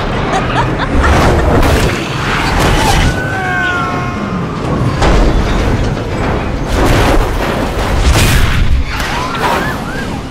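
Film sound effects of a multi-vehicle pileup: repeated crashes and booms of cars and trucks smashing and tumbling, with a heavy low rumble beneath and a brief falling squeal about three seconds in, over action music.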